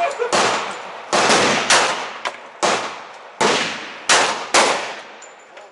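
STI Range Master pistol in .45 ACP firing about seven shots at an unhurried pace, some in quick pairs, each crack followed by a decaying echo.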